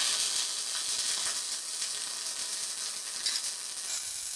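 MIG welder arc sizzling and crackling steadily as a bead is laid to build up metal on a worn bore.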